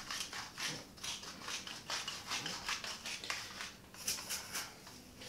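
Salt grinder being twisted over a dish of vegetables: a run of short, gritty grinding crunches, about three or four a second.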